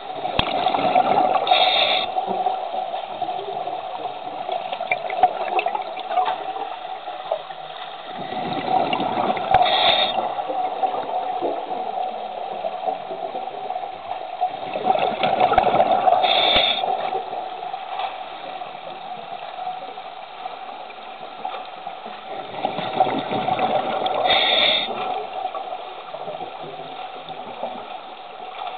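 Scuba diver breathing through a regulator underwater: four rounds of exhaled bubbles gushing, about seven seconds apart, each ending in a short hiss, over a steady drone.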